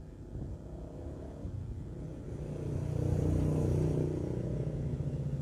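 A road vehicle's engine running, a low rumble with a steady hum that grows louder about two and a half seconds in and stays loud.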